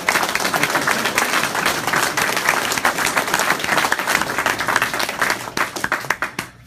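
A small group applauding, thinning to a few scattered claps near the end.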